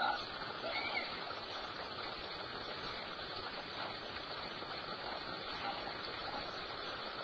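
Steady rushing background noise, like running water, with a couple of faint brief chirps about a second in.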